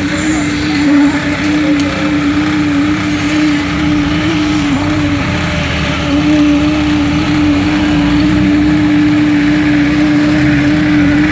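Engine-driven construction machinery running steadily: a constant, unchanging hum over a broad mechanical noise.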